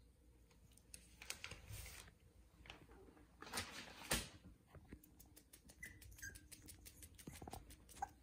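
Shorkie puppies (Shih Tzu–Yorkshire terrier crosses) moving and scuffling on a shag rug: faint pattering and rustling with scattered small clicks, the sharpest about four seconds in.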